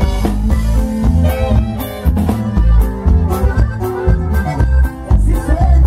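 Live conjunto band playing an instrumental passage, with a heavy, steady bass line under a regular drum beat and melodic instrument lines.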